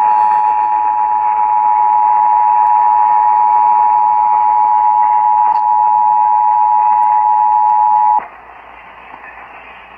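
Emergency Alert System attention signal heard over radio: the two-tone alarm of 853 and 960 Hz sounded together, held steady for about eight seconds, then cut off suddenly, leaving faint broadcast hiss. It announces a tornado warning being relayed.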